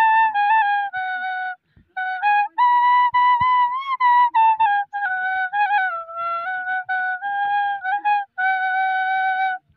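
Bamboo bansuri (transverse flute) playing a melody of held notes, with a short break about one and a half seconds in; the playing stops just before the end.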